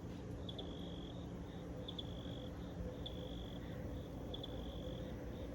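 An insect calling in a steady rhythm: short, high, shrill trills about once a second, each opening with a quick stutter, over a faint steady low hum.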